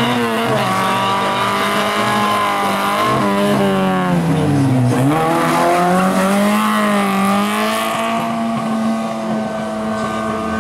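Fiat 127's four-cylinder engine driven hard through a cone gymkhana course, revs rising and falling between the turns, dropping sharply about five seconds in, then held high and steady.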